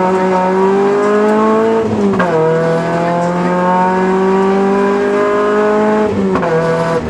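Rally car engine, heard from inside the cabin, accelerating hard along a straight. The revs climb steadily, drop with an upshift about two seconds in, climb again, and drop with another upshift near the end.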